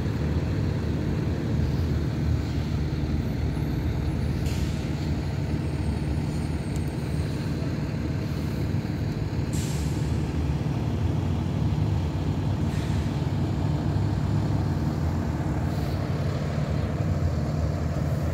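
Diesel school bus engines idling and running steadily, with four short hisses of air from the buses' air brakes, the loudest about halfway through.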